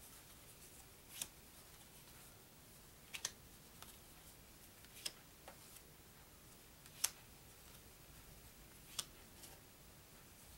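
1966 Milton Bradley Rack-O paper playing cards being taken one at a time off a small stack: a short, sharp card snap about every two seconds, five in all, the loudest about seven seconds in, over faint room hiss.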